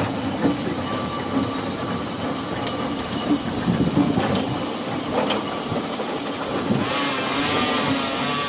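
Electric tram rolling slowly past on its rails, a steady running rumble with scattered wheel clicks and knocks. A wavering high squeal comes in near the end.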